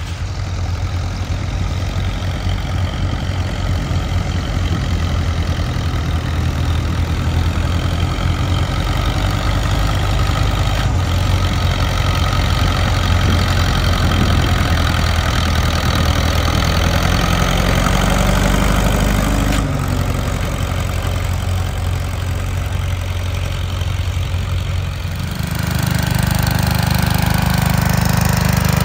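Antique tractor engines running at a steady speed. The engine note changes abruptly twice, about two-thirds of the way through and again near the end.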